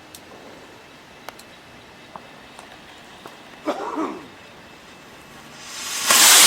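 Scattered faint pops of distant fireworks. Near the end, a loud rushing hiss of a firework going off close by swells over about a second, then fades.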